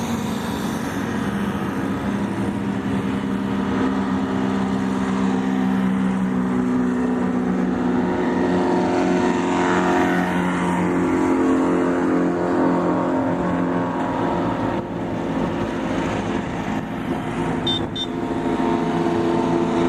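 Engines of off-road race vehicles running at low speed as they roll past one after another, the engine note swelling in the middle and dipping briefly about three-quarters of the way through.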